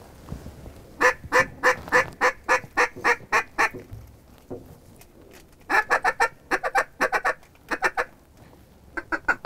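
Loud duck quacks in rapid series, about three a second. A run of about a dozen comes first, a second run follows after a short pause, and a third starts near the end.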